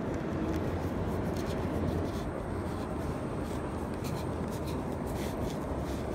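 Close rustling and scratching of a shirt sleeve and hand rubbing as a spinning fishing reel is handled, with small irregular clicks and scrapes, over a steady low background rumble.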